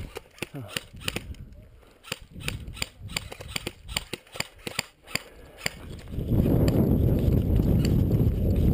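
Scattered sharp snaps of airsoft guns firing, several a second at irregular spacing. About six seconds in, a loud low rumble on the microphone covers them for the last few seconds.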